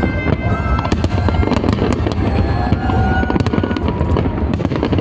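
Fireworks going off in a dense barrage: many sharp bangs and cracks in quick succession over a continuous low rumble, with thin high whistling tones that hold or glide briefly.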